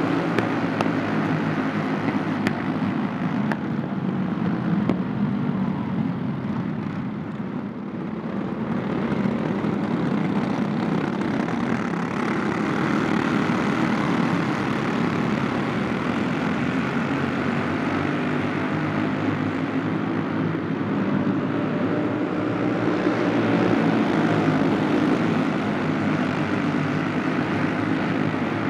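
A pack of racing karts with Briggs & Stratton Animal single-cylinder four-stroke engines running together, a steady buzzing drone of many overlapping engines that dips briefly about eight seconds in.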